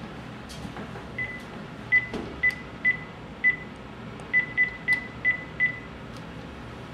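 Cordless phone keypad beeping as a number is dialed: about ten short beeps, all at the same pitch and unevenly spaced, one for each key press.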